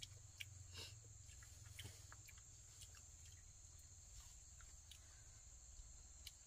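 Near silence: a steady high-pitched insect chorus, like crickets, with scattered faint clicks.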